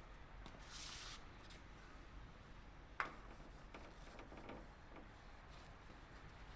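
Quiet room tone with faint handling noises: a short hiss about a second in, and a single sharp click about three seconds in.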